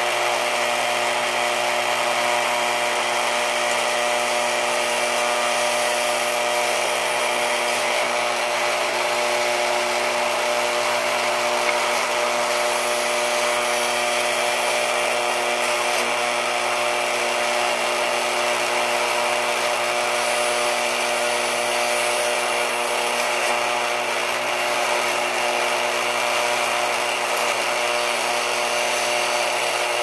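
Lionel operating sawmill accessory running, a loud, steady mechanical buzz with an even hum as its mechanism carries the logs along the platform.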